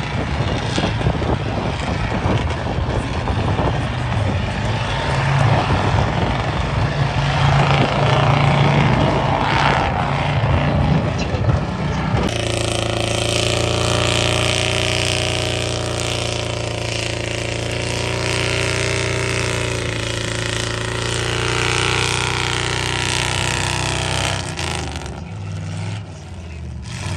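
Off-road competition truck's engine revving under load as it climbs a steep rocky slope, its pitch rising a few seconds in. About halfway through comes an abrupt change to another truck's engine running at a steady pitch as it pushes through muddy water.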